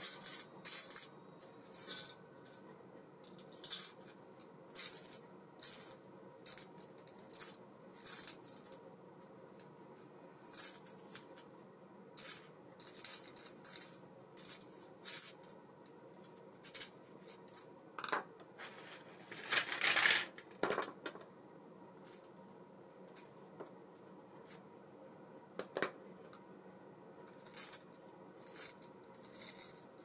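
Small metal parts of an ABU Ambassadeur 1500C baitcasting reel clinking and tapping as they are handled, in short irregular clicks. About twenty seconds in there is a longer scraping rustle.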